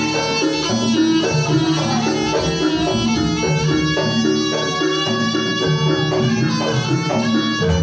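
Live Javanese jaranan music: a reedy, bagpipe-like wind melody over drums and gamelan percussion playing a steady, busy rhythm.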